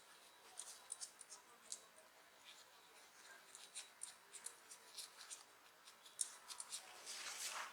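Faint, scattered light clicks and ticks of small smartphone parts and tools being handled during disassembly and cleaning. A short, louder rushing noise follows about seven seconds in.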